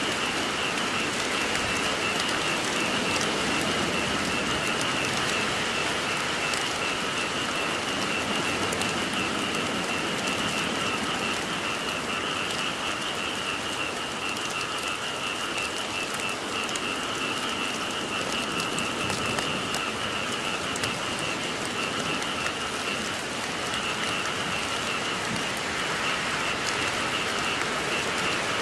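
Steady rain falling, with a chorus of frogs calling continuously through it.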